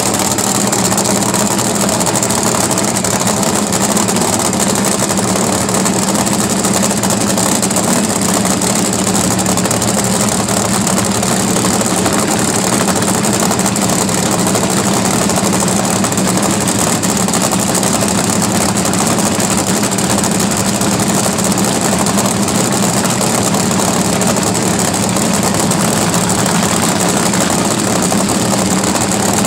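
Drag racing funny car's engine idling steadily, with no revving.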